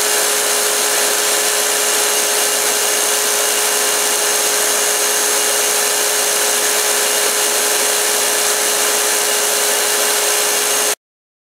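Belt grinder with a 220-grit slack belt running steadily, a constant motor-and-belt whir with a steady hum tone. It cuts off abruptly near the end.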